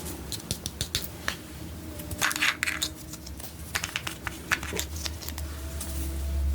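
Slime being mixed and kneaded by hand: irregular sticky clicks and crackly pops, busiest about two seconds in, with a low rumble of handling noise building near the end.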